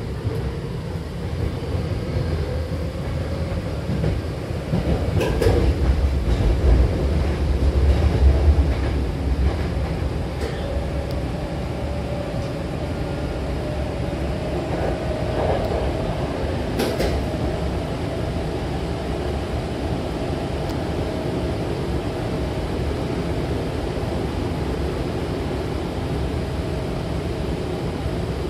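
Hankyu Takarazuka Line electric train running between stations, heard inside the passenger car: a steady rumble of wheels on rail that swells for a few seconds early in the run. A sharp click comes about five seconds in and another about seventeen seconds in, with a faint whine through the middle.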